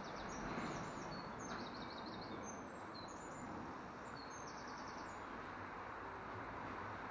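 Small birds singing, with short chirps and quick trills repeating through the first few seconds, over a steady background of outdoor noise.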